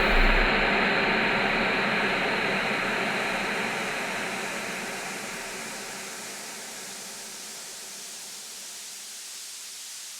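A long, noisy reverb tail of the synth and voice dying away slowly, with faint held tones fading inside it. After about seven seconds it settles into a steady hiss.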